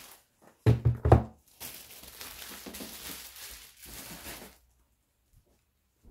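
A long cardboard shipping box is set down on a wooden desk with three or four quick thuds about a second in. A few seconds of crinkly rustling follow.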